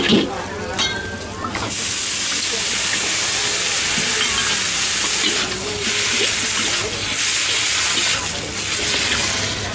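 Rice noodles sizzling in a hot steel wok as they are stir-fried with a ladle. A loud, steady sizzle starts about a second and a half in.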